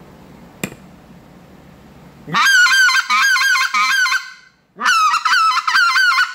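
Acrylic short-reed goose call, set up as a double reed, blown in two quick runs of rapid honking notes, each note breaking sharply upward in pitch, with a short pause between the runs. A single sharp click comes just before.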